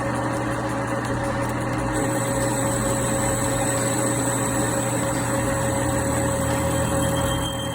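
Metal lathe running steadily with a high whine, turning a bevel on the edge of a steel nut with a worn carbide insert. It gets a little quieter near the end.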